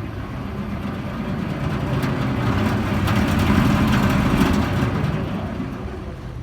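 Vehicle engine rumble that swells, peaks about three to four seconds in, and fades again.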